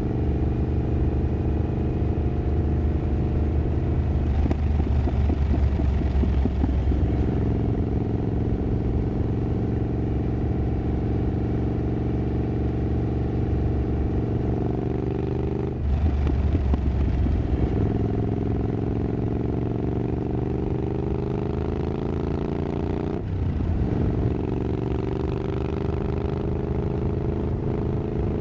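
Triumph Scrambler 900's parallel-twin engine running through an aftermarket exhaust while riding. The exhaust note breaks briefly at gear changes, about halfway through and again at about four-fifths through, then climbs in pitch as the bike accelerates.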